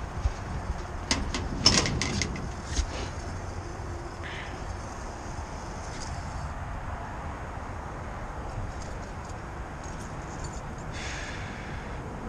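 A cluster of sharp clicks and knocks from hands-on work in the first three seconds, then a brief rustle about eleven seconds in, over steady background noise.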